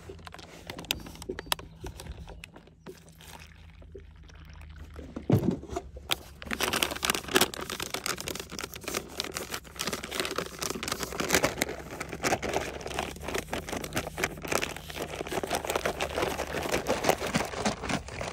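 Water poured from a plastic jug into a foil-and-plastic drink-mix pouch. From about six seconds in, the pouch is squeezed and shaken to mix the powder, a dense crinkling with some liquid sloshing.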